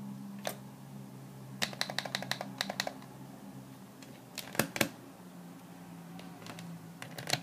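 Buttons on a digital alarm clock clicked while setting the time: one click, then a quick run of about eight, then a few more in twos and threes. A faint steady hum runs underneath.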